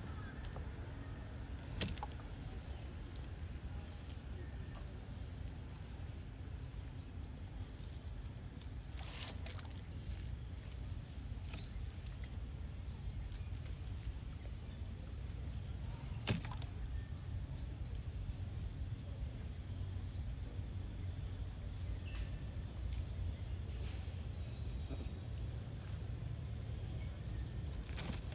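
Outdoor ambience: a steady low wind rumble on the microphone with faint bird chirps and a few sharp clicks, the loudest about sixteen seconds in.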